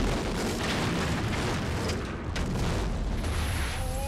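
Film explosion sound effect of a patrol boat blowing up: a deep rumbling blast with several further bangs through the smoke and fire.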